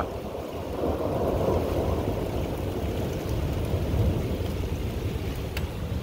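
Wind of an arriving thunderstorm gusting steadily, rumbling low on the microphone, a little stronger about a second in.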